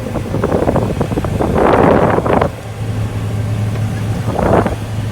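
Combine harvester running with a steady low drone. Rough bursts of noise come over it, a long one starting about half a second in and a short one near the end.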